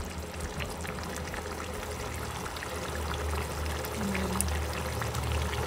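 Thick tomato-based beef tripe stew (callos) bubbling as it simmers down, with many small scattered pops over a steady low hum: the sauce reducing and thickening to serving consistency.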